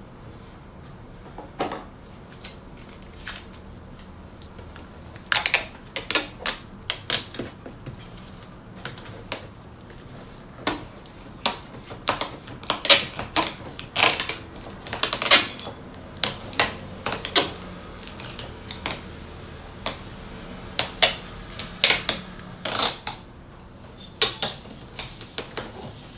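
A roll of packing tape being pulled off in short, sharp rips and pressed down onto a cardboard box, a few rips at first, then many in quick, uneven succession from about five seconds in.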